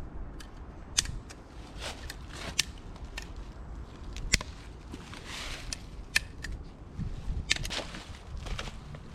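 Dry sticks snapping and cracking while firewood is broken up: irregular sharp cracks, several of them loud, over a low rumble.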